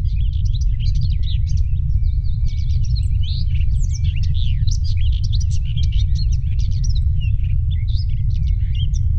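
Many birds chirping at once in a dense chorus of short, quick chirps, over a steady low rumble that carries most of the loudness.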